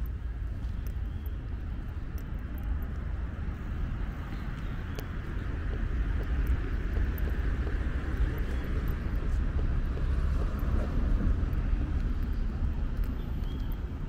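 Street ambience: a steady low rumble, with a passing vehicle that swells in the middle and fades toward the end.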